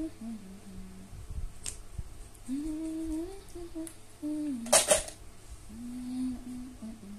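A woman humming a slow tune to herself, long held notes gliding up and down in short phrases. About two-thirds of the way in comes a brief sharp clack, the loudest sound, with a fainter click earlier.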